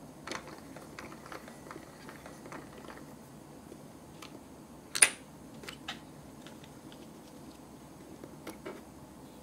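Small plastic clicks and taps from a miniature plastic toy machine being handled, with one sharp, much louder plastic snap about five seconds in and a few lighter clicks near the end.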